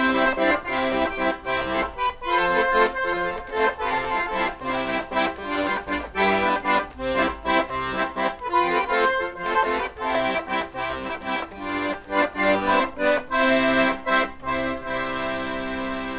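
Background music with a steady beat that ends on a long held chord near the end.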